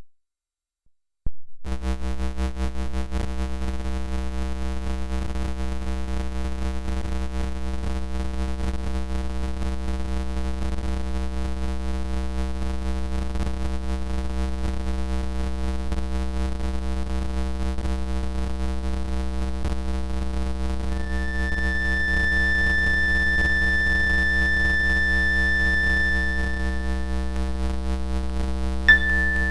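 Synthetic electronic drone, offered as pink noise but heard as a dense stack of steady tones over a strong low hum, starting abruptly after about a second and a half of silence. A high steady whistle-like tone joins about 21 seconds in, drops out near 27 seconds and comes back just before the end.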